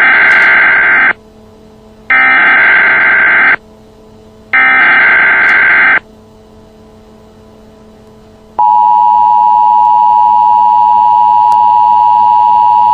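Emergency Alert System tones: three loud bursts of SAME header data, each about a second long and about a second apart, then, about eight and a half seconds in, the steady two-tone EAS attention signal starts and holds.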